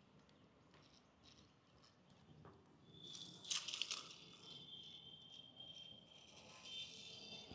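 Faint plastic rattle of a remote-control toy snake, a short clatter about three and a half seconds in, with a thin high whine lasting a few seconds around it.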